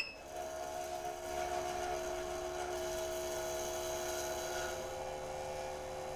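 A dental capsule mixer shaking a Biodentine capsule for its 30-second mix: a steady motor hum with several even tones, just after a short electronic beep at the start.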